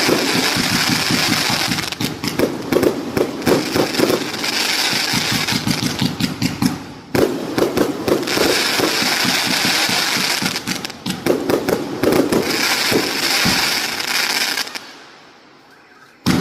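A 568-shot firework cake firing a rapid, continuous barrage of shots and bursts. The barrage thins out and stops about fifteen seconds in, followed by a single sharp bang at the very end.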